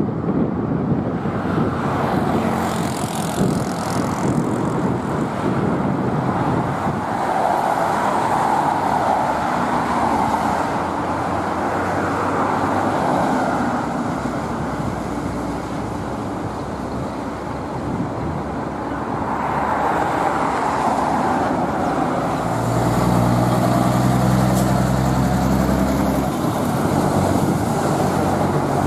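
Road traffic: a steady rush of cars going by, swelling and fading as vehicles pass. A low engine drone joins for a few seconds near the end.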